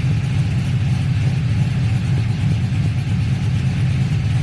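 Cammed LS V8 of a 1999–2002 Chevy Silverado idling steadily with a low, even rumble, its electric radiator cooling fans running over it as the engine sits at operating temperature.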